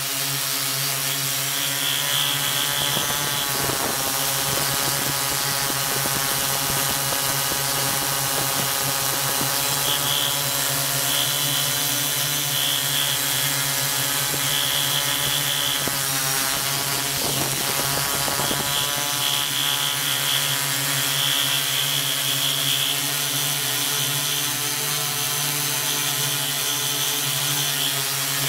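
Multirotor drone's electric motors and propellers running close to the camera it carries: a steady hum and whine over a hiss. The pitch shifts a few seconds in and again about halfway through as the motors change speed.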